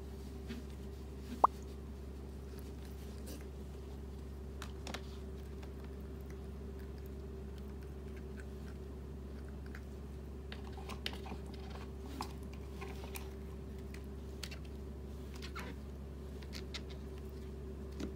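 A cat lapping water from an electric pet drinking fountain: small, irregular wet clicks from the tongue and water, with one sharp click about a second and a half in. Under it runs a steady low hum.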